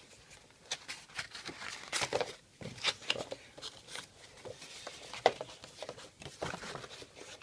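Packaging being handled and unwrapped: irregular rustling and crinkling, with scattered short sharp crackles.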